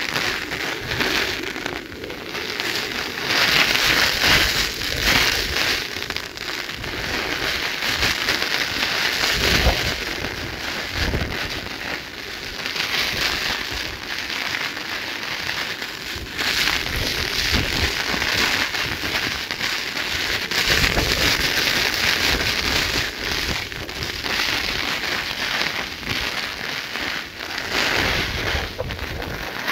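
Heavy rain falling steadily, a dense hiss that swells and eases, with wind buffeting the microphone in a few brief gusts.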